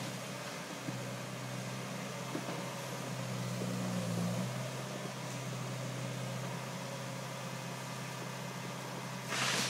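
Wheeled demolition excavator's diesel engine idling with a steady low hum, swelling briefly about four seconds in. A short loud hiss comes near the end.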